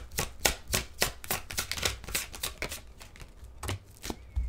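Tarot deck being shuffled by hand, cards passed from one hand to the other in a quick run of soft slaps and clicks that thins out over the last second or so.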